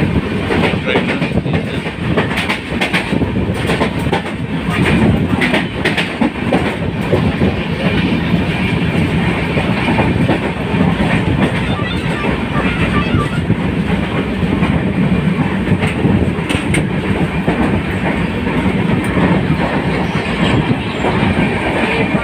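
Passenger train running at speed, heard from inside the coach by an open doorway: a steady rumble and rush of wheels on the track, with repeated clicks over the rail joints.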